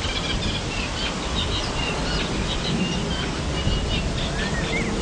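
Small birds chirping and whistling in quick, repeated short calls over a steady low rumble.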